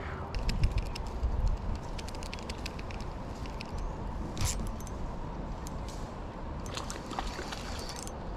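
Steady wind rumble on the microphone, with scattered light clicks from a spinning rod and reel being handled.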